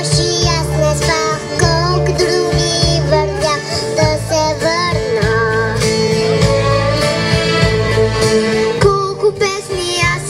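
A young girl singing into a stage microphone over instrumental backing music, heard through the sound system.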